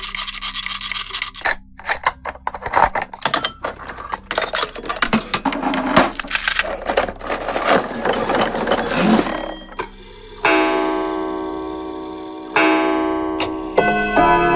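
Clockwork mechanism clicking and rattling rapidly for about nine seconds. Then a clock chime is struck twice, each stroke ringing out and slowly fading. Near the end, several chime tones ring together.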